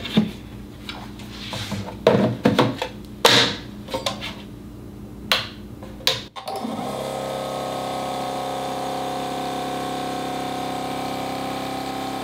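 A few clicks and knocks of handling, then about six and a half seconds in the Milwaukee M18 Fuel 2-gallon cordless air compressor (2840-20) starts up suddenly and runs with a steady motor hum, filling its tank.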